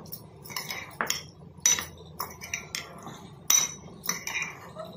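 A metal spoon stirring boiled sweet corn kernels with spices in a glass bowl, clinking and scraping against the glass in an irregular run of sharp clicks, two of them louder than the rest.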